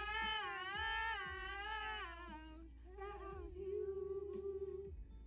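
Background song: a singer holds a long, wavering sung note for about two and a half seconds, then sings another held note over a steady bass line.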